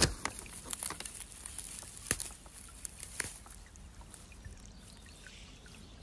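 Ostrich fern fiddleheads being picked from a clump among dry dead fronds: a crackling rustle with a few sharp snaps. The loudest snap comes right at the start, with others about two and three seconds in.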